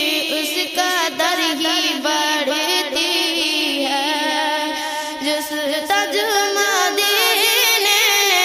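A woman's voice singing a naat, drawing out long, wavering, ornamented notes without clear words.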